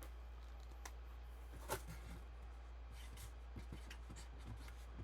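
Light handling noises over a steady low electrical hum: a few faint clicks and rustles, with one sharper click about a second and a half in.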